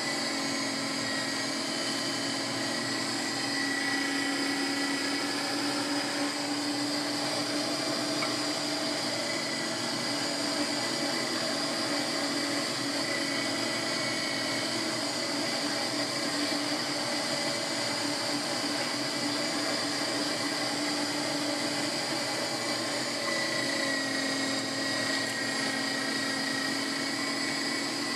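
SilverCrest Minicer SFW 350 D3 electric mincer's 350 W motor running steadily under load, driving the feed screw of its tomato strainer attachment as it presses tomatoes into sauce: a constant motor hum with a high whine.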